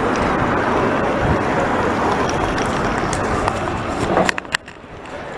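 Wind and rolling noise on a bike-mounted camera while cycling along a paved street, a steady loud rush. A few sharp clicks come about four seconds in, after which the rush drops off markedly.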